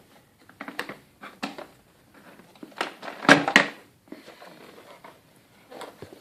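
Hard plastic clicks and knocks as the carpet cleaner's dirty-water tank and its latch are handled. The loudest clatter comes a little past three seconds in.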